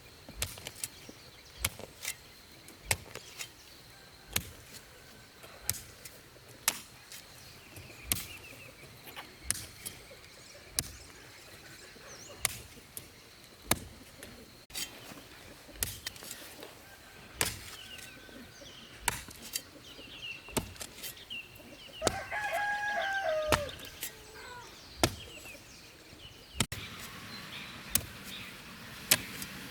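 A steady series of sharp knocks about once a second. A rooster crows about two-thirds of the way in, with other chicken calls near the end.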